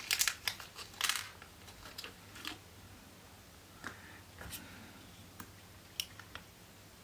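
Small clicks and taps of hard plastic model-kit parts being handled, a quick cluster in the first second or so and then a few scattered single ticks.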